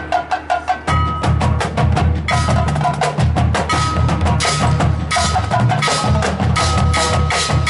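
High school marching band playing its field show: a quick run of sharp percussion strikes, then the full band with drums and low brass comes in about a second in and plays on.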